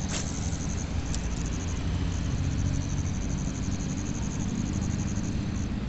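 Outdoor ambience: a steady low rumble with a high, rapid, evenly pulsing chirr running through it. There is a sharp click just after the start.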